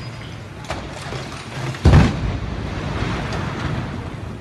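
A minaret, pulled over by cables, crashes to the ground: one heavy thud about two seconds in, then a rumble of falling debris that dies away.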